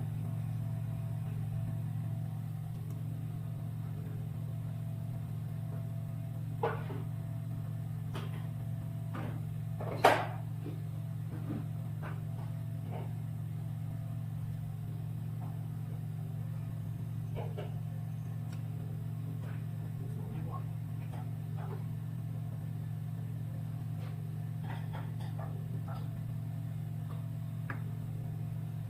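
Steady low hum of running repair equipment, with scattered light clicks and taps from handling; the sharpest tap comes about ten seconds in.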